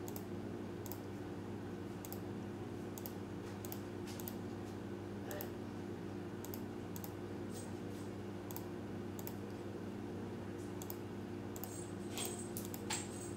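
Computer mouse button clicking at uneven intervals, one or two clicks a second, as sketch lines are trimmed in CAD software, over a steady low hum.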